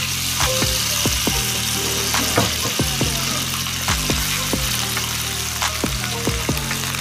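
Juices and fat sizzling in a glass baking dish of chicken just taken from a hot oven: a steady hiss with scattered small pops.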